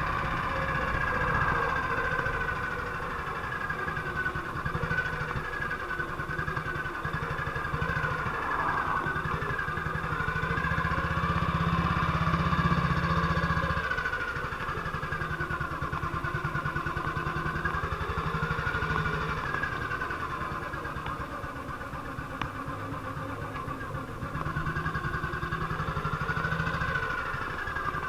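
1958 BSA C12's single-cylinder four-stroke engine running, its speed rising and falling a few times. This is the engine after its misfire has been fixed, and the owner judges it sounds the way it used to.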